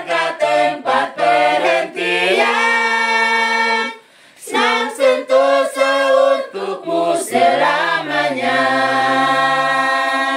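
A small group of women singing a hymn a cappella in parts. One phrase ends on a long held chord, there is a short breath about four seconds in, and the next phrase closes on another long held chord.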